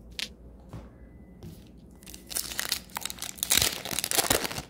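Wrapper of an Upper Deck 2021-22 Series One hockey card pack crinkling and tearing as the pack is opened. One short click comes early, then about two and a half seconds of dense crackling start around two seconds in.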